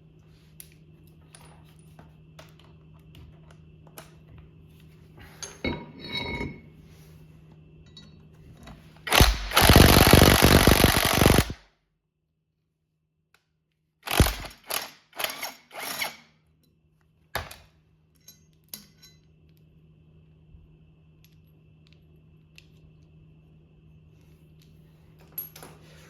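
A handheld power tool runs in bursts: one long run of about two and a half seconds near the middle, then a quick string of short bursts a few seconds later. A few light metal clicks come before it.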